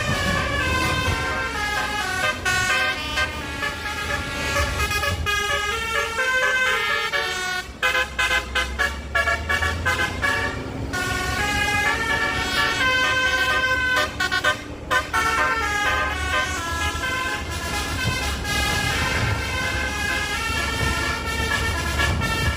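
A truck's 24-trumpet basuri musical air horn playing a tune in stepped, held notes, with stretches of short quick toots through the middle. A low rumble runs underneath.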